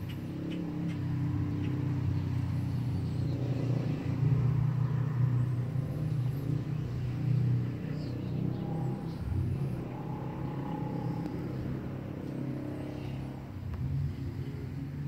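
Domestic cat purring steadily: a continuous low, rapidly pulsing hum, the sign of a contented cat.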